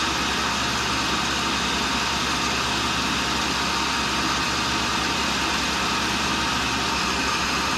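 No. 2 tool and cutter grinder running steadily, an even machine hum and hiss with no change.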